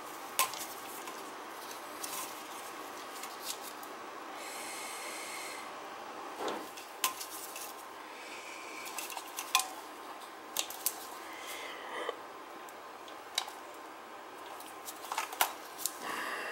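Wire strippers snipping and stripping the ends of electrical wires: scattered sharp metallic clicks and snips, with small rattles of the tool against the wires and the metal junction box.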